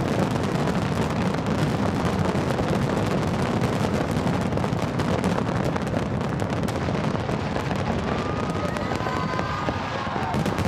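Big aerial fireworks display going off in a continuous barrage, dense crackling mixed with rumbling bangs and no let-up.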